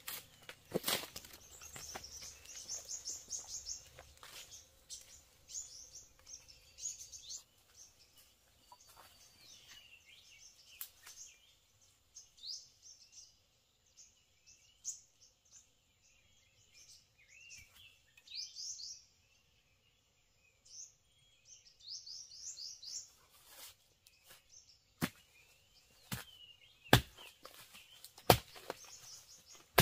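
Small birds chirping in short, rapid trills, with sharp knocks now and then; in the last few seconds the knocks come about a second apart, like blows of a blade chopping wood, and are the loudest sounds.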